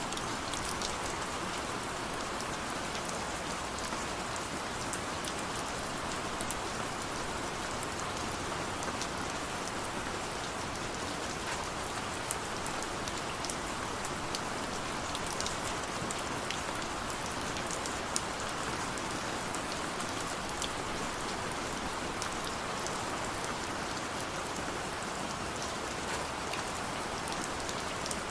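Steady rain falling, a dense even hiss with scattered sharp drop ticks.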